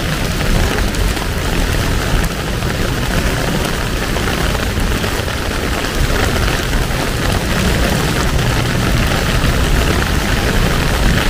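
Heavy rain falling steadily: an even, unbroken hiss over a deep low rumble.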